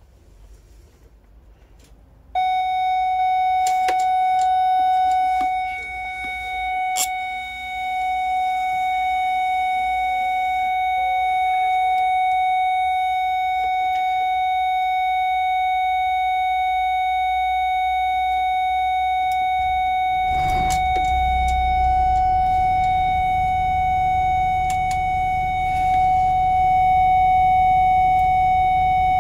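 A Mercedes-Benz Travego coach's dashboard warning buzzer sounds as one steady, unbroken high tone from about two seconds in, after the ignition is switched on. About twenty seconds in, the diesel engine is cranked and starts, then idles as a low rumble beneath the tone.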